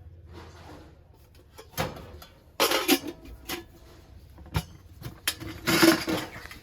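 Objects being handled: a few scattered knocks, scrapes and rustles.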